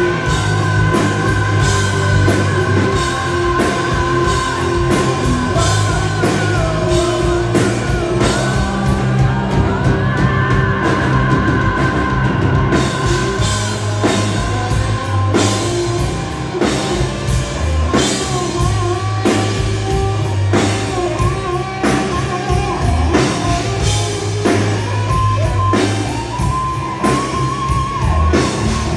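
Live hard rock band playing loudly: distorted electric guitars holding sustained lines over a steady beat on a drum kit, with a singer's voice coming in and out.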